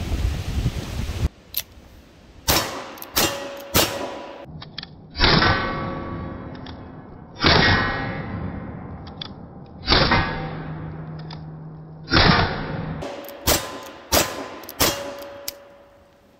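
Cartridge-conversion revolvers of the Colt Richards-Mason pattern firing about a dozen shots at steel targets. The shots come in quick strings about half a second apart, with others spaced two seconds or more apart. Several are followed by a ringing clang as the steel plates are hit.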